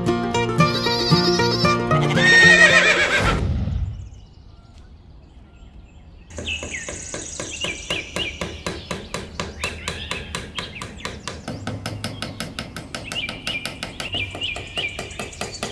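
Background music with a horse whinny over it in the first few seconds. After a short lull, music with a quick, steady plucked beat starts.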